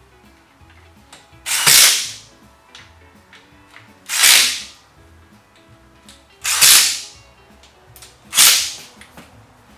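Cordless power driver spinning bolts in, in four short bursts of under a second each, fastening the transmission to the engine's adapter plate.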